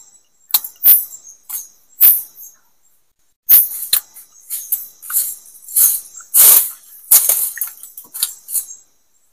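Irregular sharp snaps and crackles, a few a second, with a short pause about three seconds in, over a faint steady high drone of insects such as crickets.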